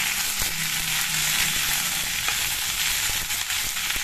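Sliced green chillies and garlic sizzling steadily in hot mustard oil in a kadhai, with a few light scrapes and taps of a metal spatula stirring them.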